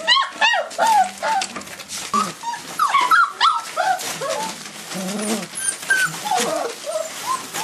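Four-week-old Fila Brasileiro puppies whimpering and yipping as they wrestle in play: many short, high squeaks and whines that rise and fall in pitch, one after another.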